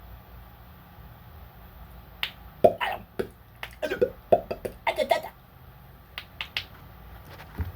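A run of irregular sharp clicks and knocks over about four seconds, over a faint low hum.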